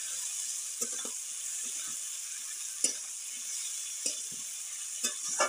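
Sliced mushrooms and onions sizzling in hot oil in a metal kadhai, with a metal spatula stirring and scraping against the pan; its sharp knocks come several times, loudest about three seconds in and at the very end.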